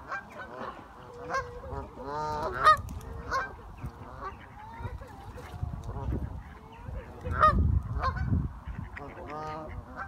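A flock of Canada geese honking, many short calls overlapping and coming in clusters. A low rumble joins in about seven to eight seconds in.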